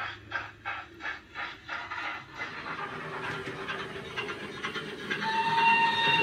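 Model steam locomotive sound decoder playing a YouChoos LSWR Adams B4 steam sound file through the small speaker of a Hornby Centenary 'Smokey Joe' OO gauge engine. Steam exhaust chuffs at about four a second fade into a steady hiss over the first two seconds or so. About five seconds in, a steady steam whistle starts and keeps sounding.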